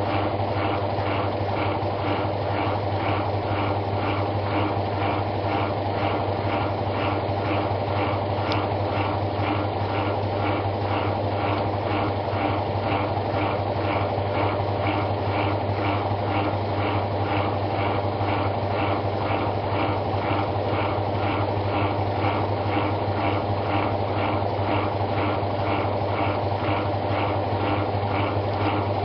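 Samsung WA89V top-loading washing machine running, with a steady low motor hum under a fast, even, repeating mechanical pulsing.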